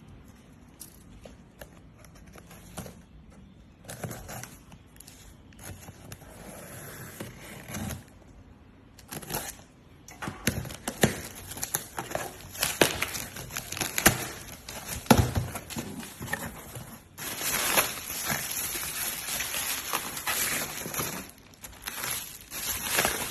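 Crinkling, rustling handling noise, like packaging being opened and handled, with scattered sharp clicks and knocks. It is sparse at first and becomes denser and louder about halfway through.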